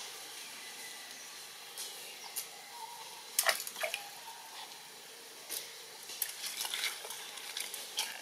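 Macaques eating corn: scattered wet chewing clicks and crunches of corn kernels, loudest in a short cluster about three and a half seconds in and again a few seconds later.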